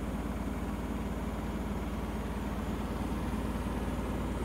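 Magic Chef MCSCWD20B3 ventless combo washer-dryer spinning a load of wet towels, giving a steady low hum from the drum and motor.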